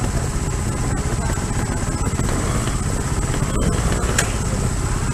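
Trials motorcycle engine running steadily at low revs, with a sharp click about four seconds in.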